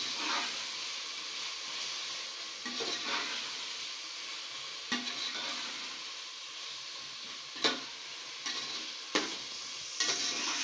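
Chicken cubes frying in a tomato and onion masala in an aluminium pot, sizzling steadily while a metal spoon stirs and scrapes through them. The spoon knocks against the pot a few times.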